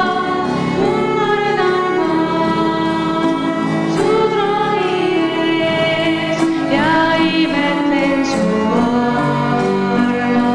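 A young woman sings a slow worship song into a microphone. An electronic keyboard accompanies her with sustained chords.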